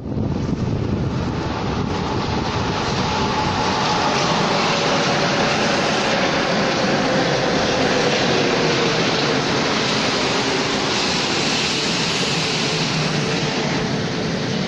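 Rubber-tyred Mexico City Metro Line 1 train pulling into the station: a loud, steady rushing of the passing cars, with a whine that falls in pitch over several seconds as the train slows.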